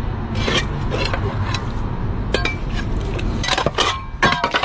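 Irregular clinks, knocks and scrapes, with a steady low rumble beneath.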